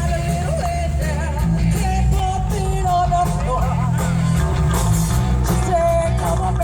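Loud rock music with a singer's voice over heavy bass, heard through concert loudspeakers.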